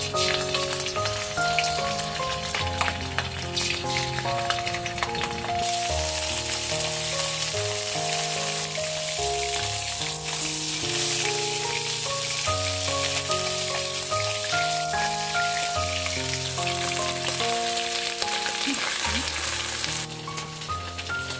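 Hairtail fish pieces sizzling and crackling as they fry in oil in a wok. The sizzle grows louder about six seconds in and drops away near the end. Background music plays a melody throughout.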